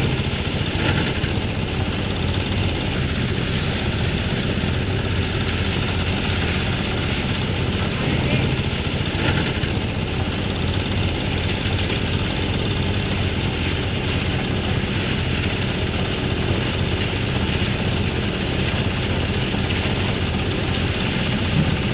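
Farm machine's engine running steadily at an even pace.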